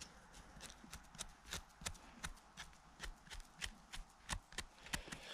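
Knife blade scraping soil and debris off the base of a freshly picked bolete mushroom's stem: a run of short, quick scrapes, about three or four a second.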